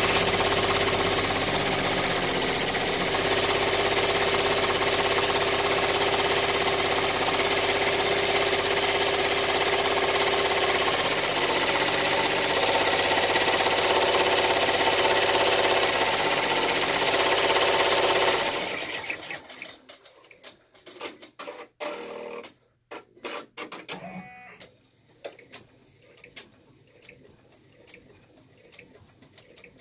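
Baby Lock Enterprise ten-needle embroidery machine stitching at speed, a loud steady running sound that stops about two-thirds of the way through. Only scattered faint clicks follow.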